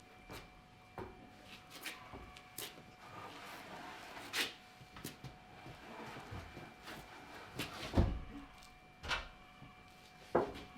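Scattered knocks and clatters of wooden 2x4 framing lumber being handled and set in place, with a heavier thump about eight seconds in.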